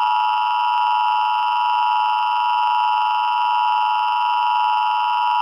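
Emergency Alert System attention signal: a steady two-tone electronic alarm (853 Hz and 960 Hz sounded together), the signal that an emergency broadcast message is about to follow.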